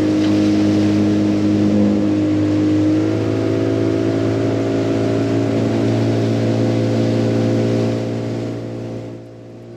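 Boat's outboard motor running at a steady speed, a constant low hum with several held tones above it, dropping in level near the end.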